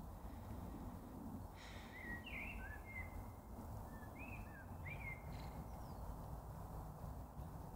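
A few short bird chirps, each a quick rise or fall in pitch, over a steady low rumble of outdoor ambience. The chirps come in a cluster from about a second and a half to five and a half seconds in.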